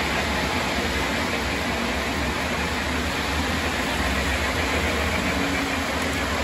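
Model electric trains running around the layout's track, making a steady rolling rumble with no breaks.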